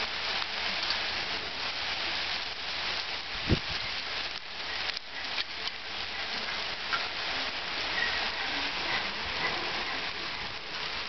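Hailstorm: small hailstones pattering on tarmac and grass, a dense steady hiss of tiny hits. One low thump about three and a half seconds in.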